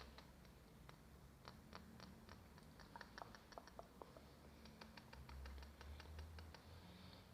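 ASMR tapping on a hard object: faint, light, quick taps in irregular runs, several a second.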